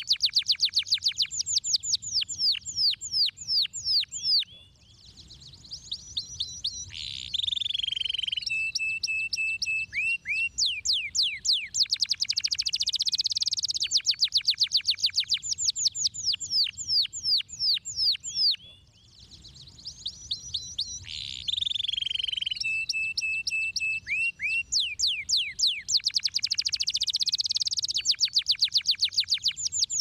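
Domestic canary singing: fast rolling trills of rapid falling notes, broken by a steady held whistle and two brief pauses. The same run of phrases comes round again about every 14 seconds.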